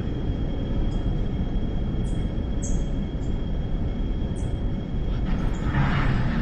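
Inside an MTR Tseung Kwan O line M-Train in a tunnel: a steady low rumble with a thin high whine over it and a few brief faint squeaks. A rush of hiss swells near the end.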